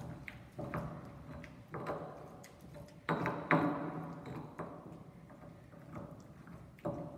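Stone pestle grinding and mashing chile salsa in a volcanic-stone molcajete: irregular wet, crushing strokes with clicks of stone on stone, the loudest stroke a little over three seconds in.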